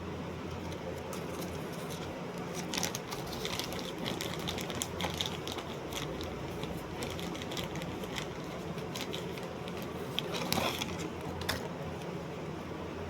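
Scattered light clicks and rustles over a steady low hum and hiss, starting a couple of seconds in and bunching into a louder cluster near the end.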